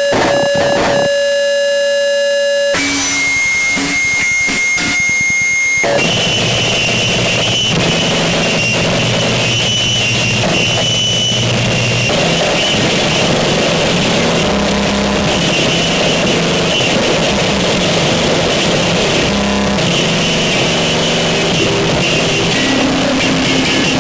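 Harsh noise music: a loud, dense wall of distorted noise with held tones layered in. It changes abruptly about three seconds in and again about six seconds in, then stays thick and churning.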